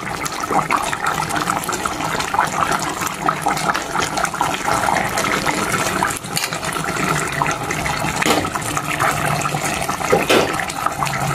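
Thick lechon paksiw sauce of pork, soy sauce, vinegar and liver sauce simmering in a pot, a steady dense bubbling and popping. A few sharper strokes come from a metal ladle stirring through it.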